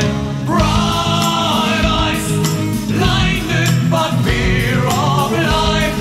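Background music: a song with singing over a steady beat.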